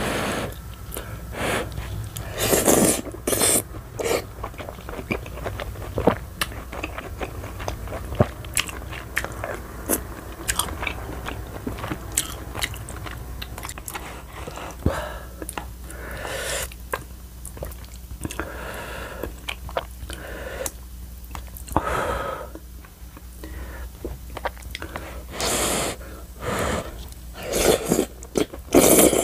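Close-miked eating: a person chewing soft, chewy tteokbokki rice cakes in creamy rose sauce, with many small wet mouth clicks. A few louder slurps come through, the loudest near the end.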